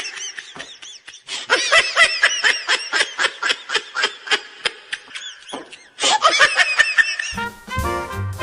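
High-pitched laughter in rapid bursts, several a second, with brief pauses. Near the end, swing-style music with brass comes in.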